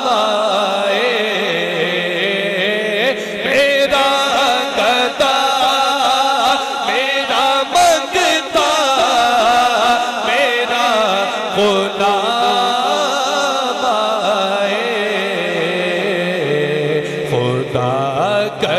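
Male voices singing a naat, an Islamic devotional chant, through microphones in long, wavering, melismatic lines. A steady low drone runs underneath and drops in pitch about three-quarters of the way through.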